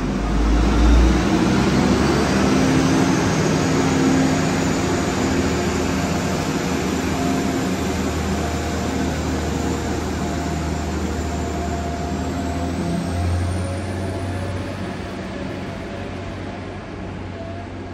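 Diesel train engine running as the train moves off, a thin whine slowly rising in pitch as it gathers speed, the sound fading gradually as it draws away.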